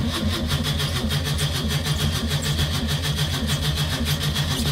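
Škoda 120's four-cylinder engine being cranked by its starter motor with the choke pulled, a steady rhythmic churning that does not catch. It is a cold start that fails, which the owner puts down to fuel not getting through.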